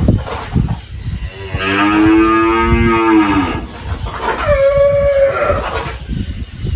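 Cattle mooing: a long, low moo about one and a half seconds in, then a shorter, higher-pitched call about four and a half seconds in.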